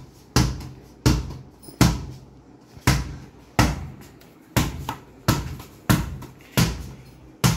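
A small football being bounced by hand on a hard floor: about ten bounces at an uneven pace, a little under one a second, each a sharp thud with a short ringing tail.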